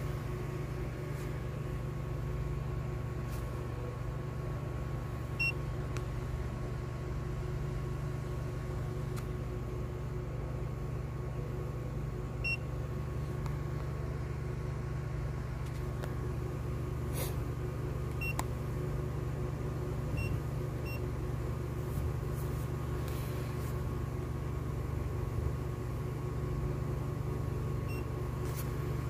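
Steady low hum from the car, with about half a dozen short high beeps spaced a few seconds apart from the handheld OBD-II scan tool as its buttons are pressed to work through the menus.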